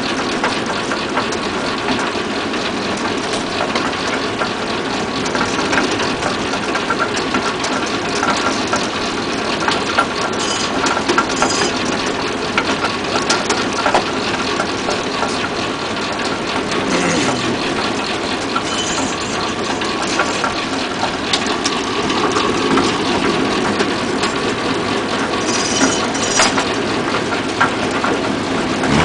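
Circular sawmill's engine running steadily without cutting, with scattered sharp knocks of wood on wood as the log is blocked on the carriage with a 2x4.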